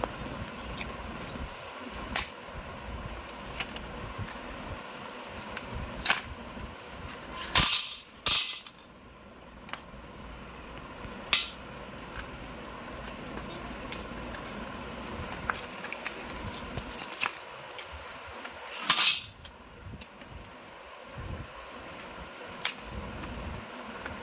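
Slate pencils and their packaging being handled, with scattered sharp clicks and clacks of the hard pencils knocking together. There are a few louder, slightly longer scrapes about a third of the way in and again near the end, over a steady background hum.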